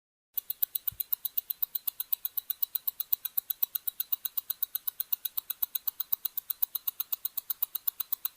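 A watch ticking steadily, about five quick, sharp ticks a second, starting a moment in.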